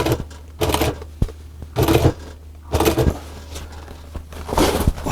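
Sewing machine stitching in short bursts, four short runs about a second apart, easing the material round a corner a few stitches at a time, over a steady low hum.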